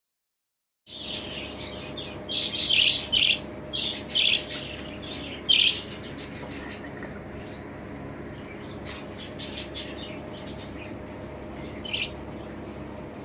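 Young budgerigars chirping: a cluster of short, high calls in the first few seconds, then a few faint clicks and one more chirp near the end, over a steady low hum.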